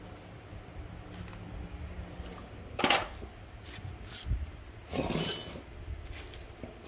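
Two sharp metallic clinks over a low background rumble, about three seconds in and again about five seconds in, the second ringing briefly: metal machine parts knocking as they are handled.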